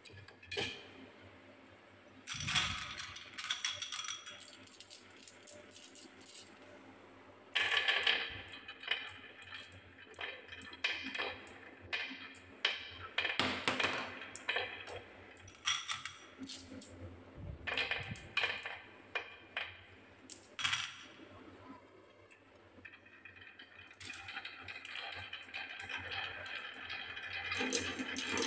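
Painted wooden balls clacking against each other and the track as they are set one by one onto a wooden marble-run slope, in short bursts of clicks. Near the end the balls are let go and a continuous rolling rattle builds up as they run down the wooden track.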